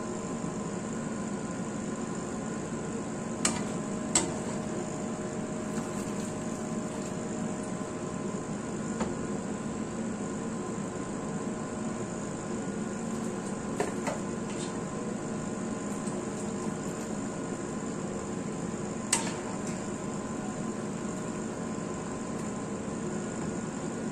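Cooking utensils clink against a pan a few times, sharply, as vegetables are scooped out of steaming water, over a steady kitchen hum.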